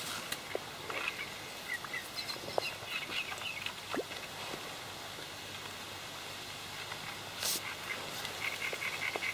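Small birds chirping in short clusters of high notes, heard over steady outdoor hiss, with a few faint clicks.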